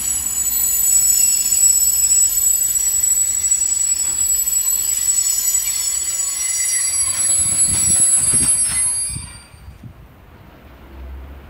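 Freight train of container wagons rolling past, with a continuous high-pitched squeal from its wheels over the rumble. A few low thuds come as the last wagons pass, and the sound drops away suddenly about nine seconds in.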